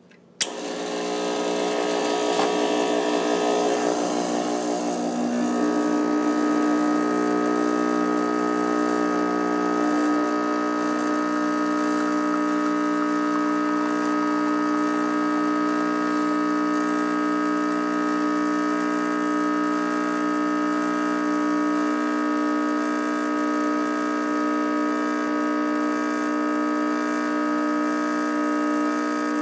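Espresso machine pump running while a shot is pulled through a bottomless portafilter. It switches on with a click, and its hum shifts in pitch over the first five seconds as pressure builds, then holds steady.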